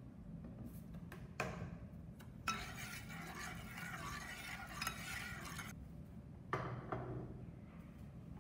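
Metal spoon clinking on a saucepan, then stirring soy sauce into the broth for about three seconds, followed by two more clinks near the end.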